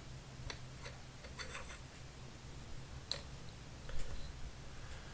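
A few faint, scattered plastic clicks and taps from Lego pieces and controls being handled, the strongest about three and four seconds in, over a low steady hum.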